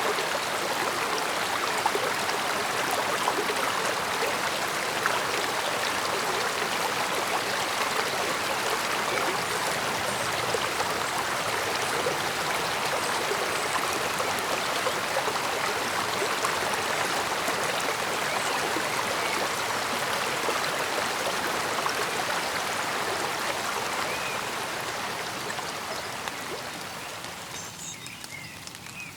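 Mountain stream flowing steadily over rocks: an even, babbling water sound that fades down over the last few seconds, with a few faint high bird chirps coming through right at the end.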